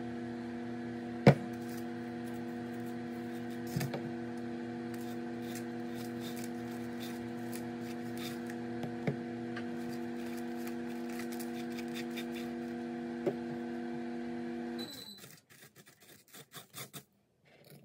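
Microwave oven running with a steady electrical hum, which cuts off about fifteen seconds in with a short high beep. A few clicks and knocks of kitchen things handled on the counter sound over it, the sharpest a little over a second in.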